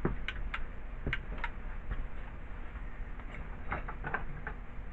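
Scattered light clicks and taps of small objects being handled on a workbench, several in the first second and a cluster near the end, over a low steady hum.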